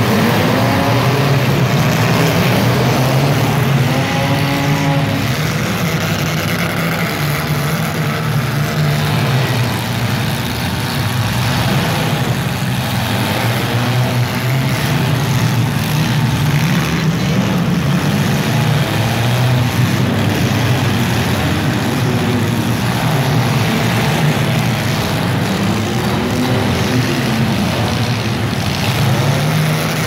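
Several compact demolition-derby cars' engines running hard and revving, their pitch rising and falling as the cars accelerate and back up, over a continuous din of mixed engine noise.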